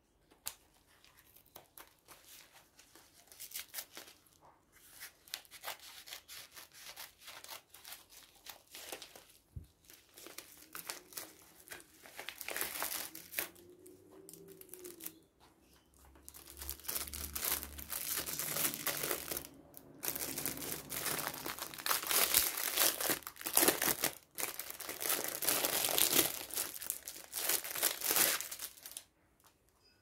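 Plastic packaging being handled and torn open: a plastic mailer bag rustling, then clear plastic shrink wrap crinkling loudly as it is pulled off a tablet case over the second half, stopping just before the end.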